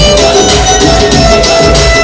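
Punjabi dance song played loud, with a steady fast beat and held instrumental notes over it.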